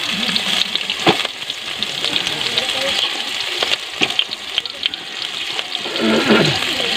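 Whole spiny lobsters sizzling in hot oil in an aluminium pot. A few sharp knocks sound as the shells are turned by hand against the pot.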